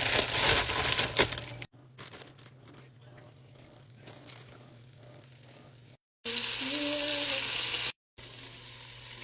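Flour-dredged deer meat sizzling and crackling in hot beef tallow in a cast iron Dutch oven. The sizzle comes in short clips broken by abrupt cuts, and a quieter stretch of faint crinkling runs from about two seconds in to about six.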